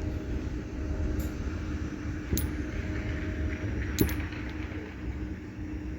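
A few short metallic clinks of used spark plugs being handled and knocking together, about 1, 2.5 and 4 seconds in. Underneath runs a steady low background hum.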